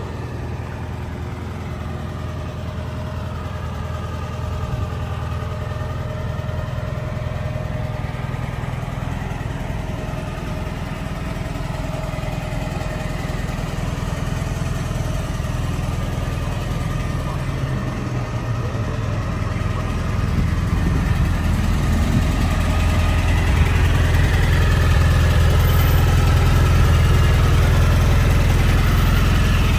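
1956 Volkswagen Beetle's air-cooled flat-four engine idling steadily, growing louder in the last third.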